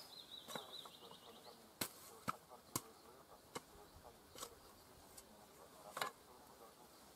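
Scattered sharp clicks and knocks, about eight over seven seconds, with a faint high wavering whine in the first second and a half.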